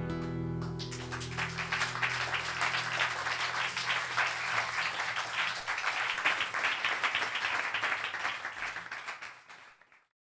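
Audience applauding after a song, starting about a second in over the last ringing chord of acoustic guitar and double bass, then fading out to silence near the end.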